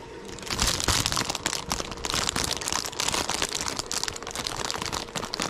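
Plastic lure packaging crinkling and crackling as it is handled, a dense run of small crackles starting about half a second in.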